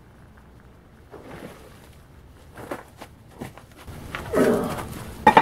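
A hot 50-pound steel slab being quenched in a tub of Superquench and hauled out with tongs. The quench water bubbles and splashes with a few knocks, then a louder surge of splashing about four seconds in and a sharp metallic clank near the end.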